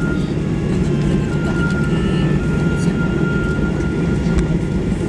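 Steady low rumble of a Boeing 737-800's CFM56 engines and airflow heard inside the cabin while the airliner taxis, with a faint high whine that breaks off and returns and a few light ticks and rattles.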